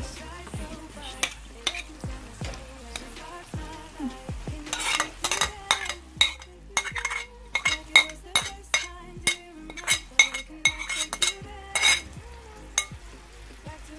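Minced meat sizzling in a frying pan as grated onion is scraped off a plate into it with a spoon. From about five seconds in, there is a quick run of sharp clicks and taps of the spoon against the plate and pan.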